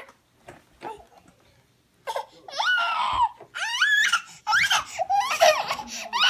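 Near silence for about two seconds, then toddlers squealing: a string of high-pitched shrieks and cries, each rising and falling in pitch.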